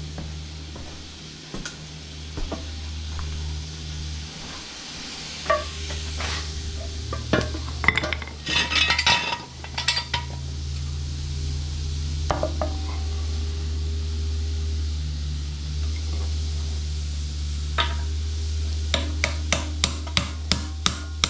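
Hand tools and metal parts clinking and clattering during mower repair work, with a burst of clatter about halfway through, then a socket wrench ratcheting in a quick run of clicks near the end. A steady low hum runs underneath.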